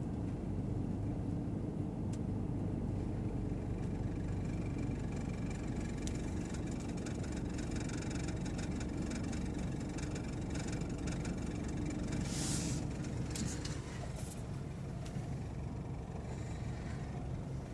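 2012 Toyota Camry idling in drive with the brake held, a steady low engine hum with faint irregular clicking of unknown origin. A short hiss comes about twelve seconds in, and the hum drops slightly soon after.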